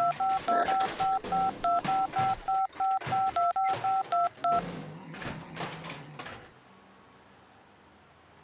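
Phone keypad touch-tone dialing: a quick run of about seventeen short beeps, roughly four a second, stopping about four and a half seconds in.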